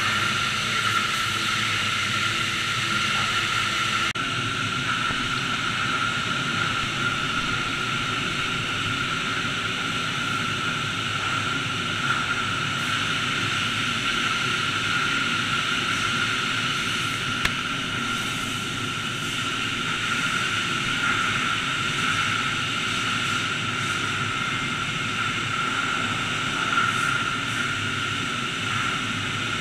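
High-pressure washer wands spraying water onto a semi truck: a steady hiss and rush, with a constant high whine running through it.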